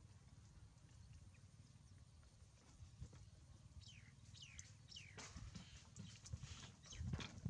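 Faint monkey squeaks: a run of short high calls, each falling in pitch, about four seconds in. Scattered knocks and rustling follow near the end, over a low rumble.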